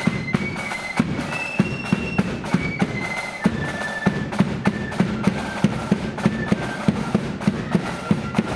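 Marching flute band playing a tune: a melody of held flute notes stepping up and down, over a steady run of snare and bass drum beats.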